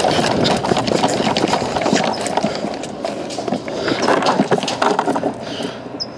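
Footsteps crunching on dry dirt, with gear and rifle gear rattling, as a player moves on foot. The noise eases off near the end.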